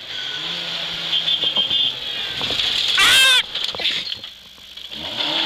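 Rally car engine heard from inside the cabin, running steadily under load, then easing off, and revving up again near the end. About three seconds in, a brief loud, high-pitched wavering sound cuts through, either a shout or a tyre squeal.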